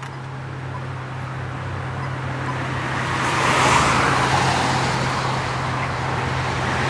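A car passing on the road, its tyre and engine noise swelling to a peak about four seconds in and fading, with the next vehicle approaching near the end. A steady low hum runs underneath.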